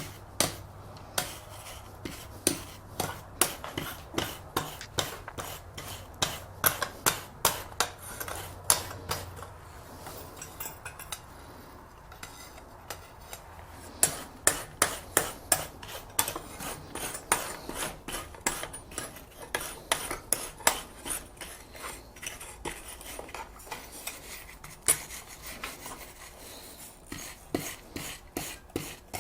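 Wire brush scrubbing the scale off a hot forged steel ornament in quick, repeated strokes, a few a second, pausing for a few seconds near the middle.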